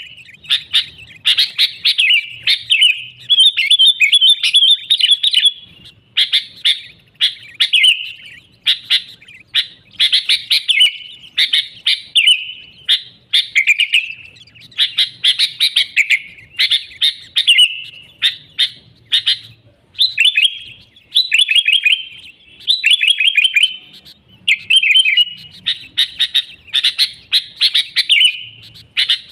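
Sooty-headed bulbul singing vigorously: short phrases of quick, chirpy notes, one after another with only brief gaps.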